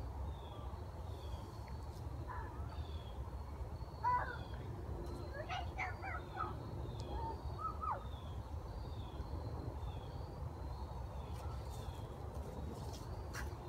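Outdoor ambience: a high, short chirp repeating steadily, with a few brief rising-and-falling calls about a third of the way in, over a low steady rumble.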